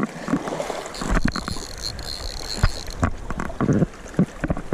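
Water splashing and sloshing in irregular bursts as a hooked rainbow trout is played in a river, with wind rumbling on the microphone.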